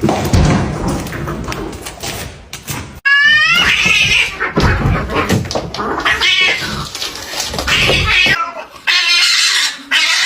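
Cats caterwauling and meowing: a run of drawn-out, wavering yowls that begins abruptly about three seconds in, after a stretch of rough noise.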